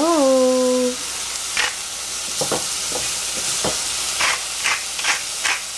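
Oyster mushrooms sizzling as they fry in a stainless steel saucepan, with a wooden spatula stirring and scraping them against the pan in several short strokes.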